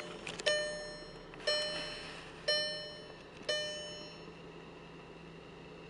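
2009 Volkswagen CC's dashboard warning chime ringing about once a second, four times, each ding dying away before the next. The last one comes about three and a half seconds in. A faint steady low hum runs underneath.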